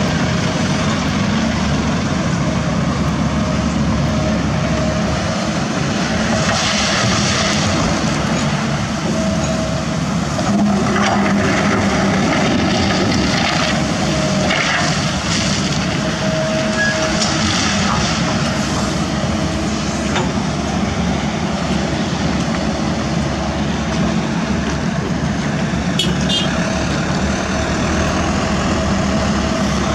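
Diesel engines of a Kobelco SK200 excavator and an Isuzu Elf dump truck running steadily while the excavator loads soil into the truck bed. A few stretches of louder rushing noise come as bucketloads are dumped onto the heap.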